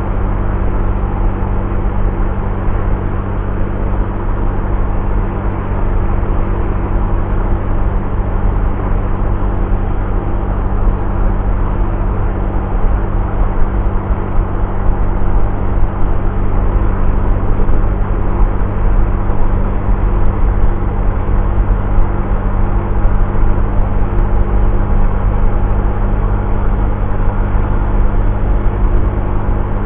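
Honda Vario scooter's single-cylinder engine running at a steady cruising speed, its hum holding an even pitch, under steady wind and road noise.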